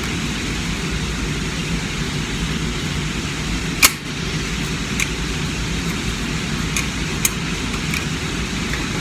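Steady outdoor rumble and hiss, with one sharp crack about four seconds in and a few light clicks after it.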